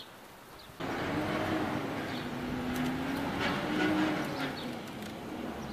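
A motor vehicle's engine running close by over steady road noise, with a low hum that dips and then rises a little in pitch; it starts abruptly about a second in.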